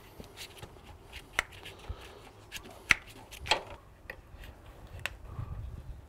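Fingers pressing foam tabs into the channel of an aluminium pergola leg: scattered light taps and clicks against the metal, a few of them sharper, with a brief low rumble near the end.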